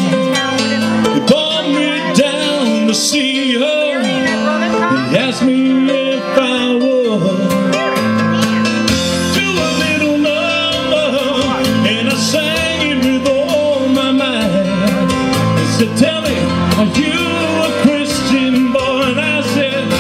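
Live pop song through a PA: electric keyboard playing a piano part with a man singing over it.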